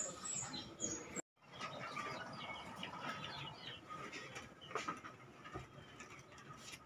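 Small birds chirping faintly in quick, scattered high notes, mixed with light clicks and rustles. The sound cuts out for a moment about a second in.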